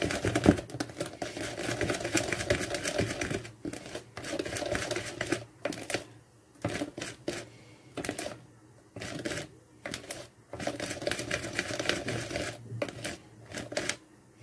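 Wire hand whisk beating a thick semolina batter in a plastic mixing bowl: a fast run of clicking and scraping as the wires hit the bowl's sides. It stops briefly several times in the second half.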